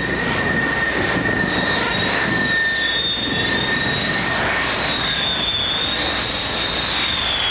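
Jet engines of a Grumman F-14 Tomcat on final approach to a carrier: a steady rushing noise carrying a high turbine whine that wavers slightly in pitch, over a second, steadier whine.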